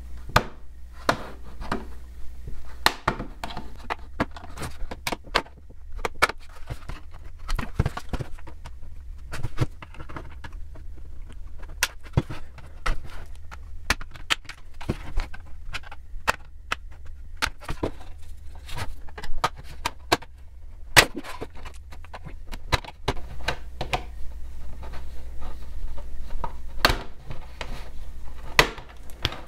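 Snap-fit plastic clips of a Raspberry Pi 400 keyboard case popping open one after another as a thin plexiglass cutting tool pries along the seam between the top and bottom shells: many irregular sharp clicks and cracks over a steady low hum.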